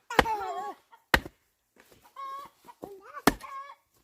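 Three sharp chopping strikes, spread out at irregular intervals, with short pitched calls in between.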